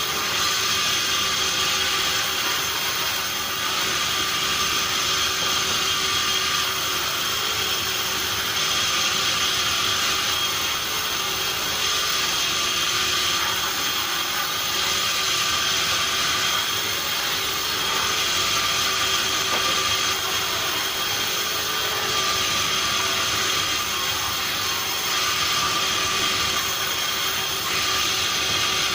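Sawmill saw running steadily with a constant high whine, its noise swelling a little every few seconds as it works through acacia wood.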